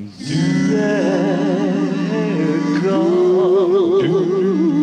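Five-man a cappella vocal group singing in close harmony, holding a long chord with the voices wavering in vibrato. One part steps up to a higher note about three seconds in.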